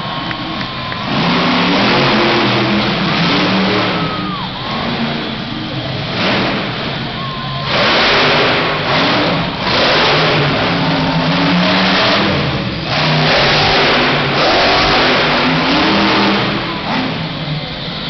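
Grave Digger monster truck's engine revving hard in repeated bursts, its pitch rising and falling as it works the course. It swells loudest several times, around eight, ten and thirteen seconds in.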